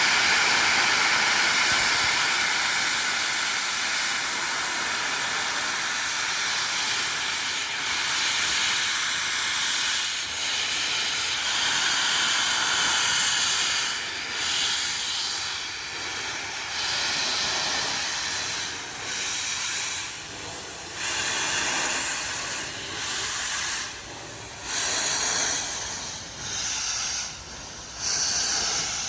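Steam hissing from Flying Scotsman, the LNER A3 Pacific steam locomotive: a steady loud hiss at first, breaking about halfway into separate bursts with short gaps, roughly one every two seconds.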